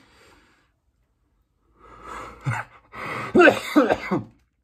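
A man with COVID-19 coughing: a fit of several harsh coughs in quick succession, starting about two seconds in and loudest near the end. It is the persistent cough that is still with him on day 12 of the illness.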